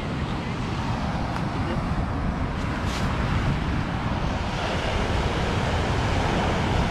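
Surf on the beach and wind on the microphone: a steady noise without pitch, heaviest in the low end.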